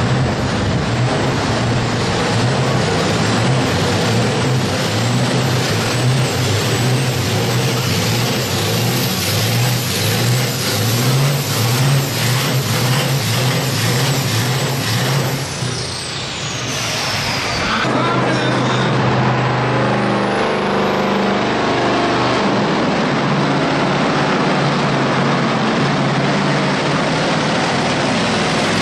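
Scania 144 pulling truck's V8 diesel working flat out against the weight-transfer sled, with a high turbo whistle over the engine note. About 15 s in, the whistle falls away and the sound dips as the pull ends. Then a second truck's diesel revs up with a rising turbo whistle and runs hard and steady on its own pull.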